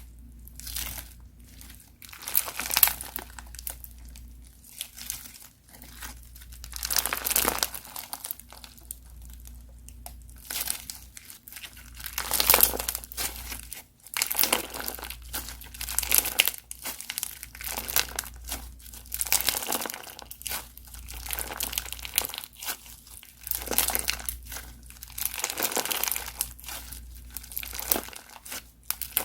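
Crunchy slime being squeezed and pressed, crackling in repeated bursts of a second or two each, with short pauses between them.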